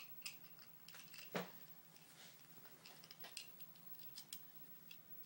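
Faint, scattered clicks and taps of plastic Lego pieces being handled, with one sharper knock about a second and a half in.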